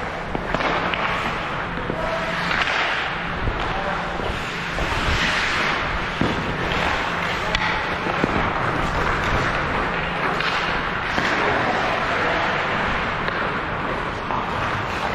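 Game play on an ice rink: a steady scraping hiss of skates on the ice with frequent sharp knocks of sticks and puck, and voices calling out.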